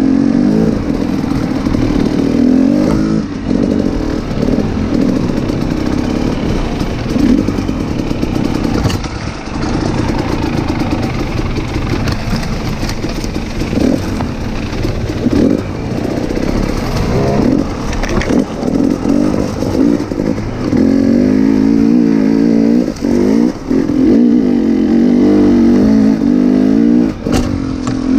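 Enduro dirt bike engine running under load on a forest trail, its note rising and falling repeatedly as the throttle is opened and closed, with a few brief drops when the rider backs off.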